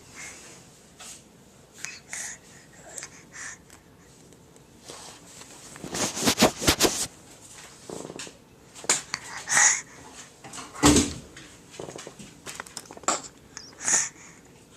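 Baby laughing in short, breathy bursts, with a quick run of giggles about six seconds in and single louder outbursts near the end.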